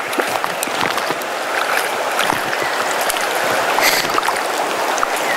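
River water flowing steadily, with scattered small splashes from a hooked fish thrashing at the surface as it is played and netted.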